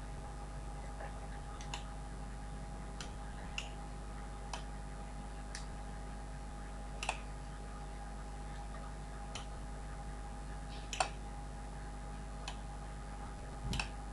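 Faint, irregularly spaced small clicks, about ten of them, over a steady electrical hum.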